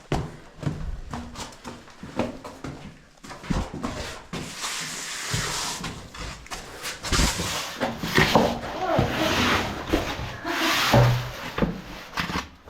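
A person grunting and breathing hard while squeezing through a tight cave crawl, with clothing and gear scraping and rustling against the rock.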